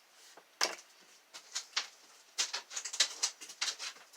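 Small sharp metal clicks and taps from handling a just-opened Master No. 576 padlock and its picks: one click about half a second in, then a quick run of them in the second half.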